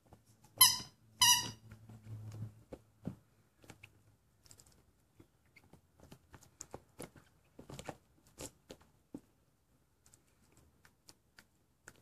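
A rubber squeaky toy squeaks twice in quick succession about half a second in as a puppy bites down on it, followed by scattered soft clicks and taps of the puppy chewing and moving the toy on a wooden floor.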